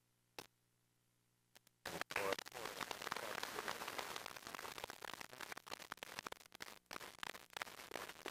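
Applause from a small audience, mixed with voices, starting suddenly about two seconds in after near silence and thinning to scattered claps toward the end.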